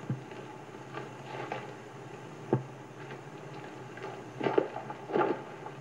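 Footsteps and scuffs on a dirt street, with a few sharp thuds. The two loudest, near the end, come as a man runs back toward a horse for a running mount. A steady low hum and hiss of an old film soundtrack lies underneath.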